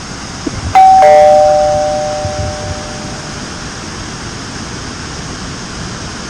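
A two-note ding-dong chime, a higher note followed at once by a lower one, both ringing out and fading over about two seconds, over a steady rush of spillway water.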